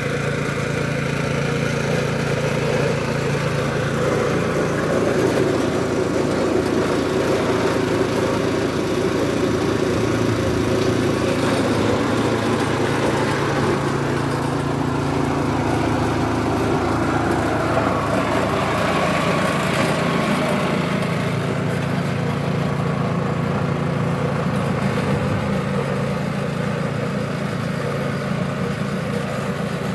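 Wheeled petrol snow blower's engine running steadily as it is pushed along, clearing snow from a garden path.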